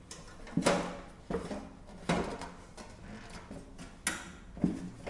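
Sheet-metal top cover of a SilverStone SG13 Mini-ITX case being jiggled against its chassis while it sticks and won't lift off: about five separate metallic clunks and rattles spread over a few seconds.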